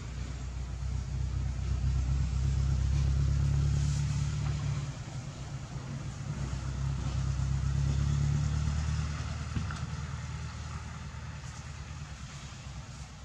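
Low engine rumble of a motor vehicle running off-screen, swelling up twice and fading away near the end.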